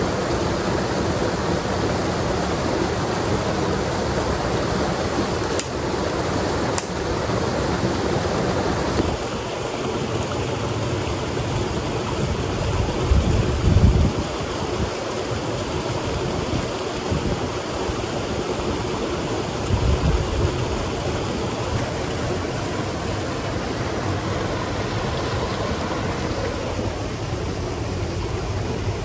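Small waterfall and stream rushing steadily. A couple of faint clicks come about a quarter of the way in, and two brief low thuds about halfway and again a little later.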